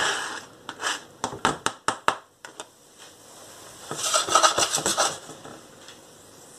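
Diced onion being knocked off a plastic cutting board into a frying pan, with a quick run of about ten sharp knocks and clicks in the first two seconds. About four seconds in, the pan is shaken and slid on the glass hob, a brief clatter and scrape with the onion pieces rattling.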